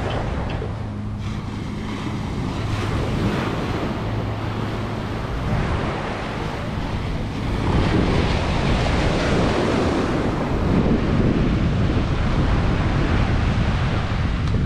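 Small waves breaking and washing up a sandy shore, with wind buffeting the microphone. The surf grows louder a little past halfway.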